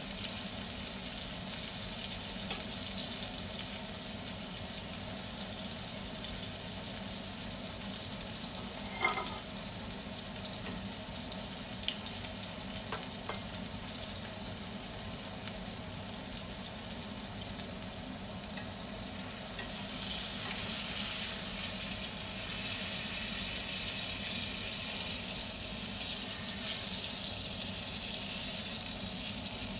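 Beef steak sizzling steadily in hot fat in a cast iron skillet, with a few light clicks early on the way; the sizzle grows louder and brighter about two-thirds of the way through.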